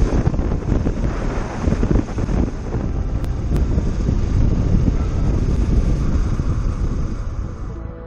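Heavy wind rush on the microphone of a moving motorcycle, a Kawasaki Versys-X 300, with engine and tyre noise under it on a gravel track. The noise dies away near the end.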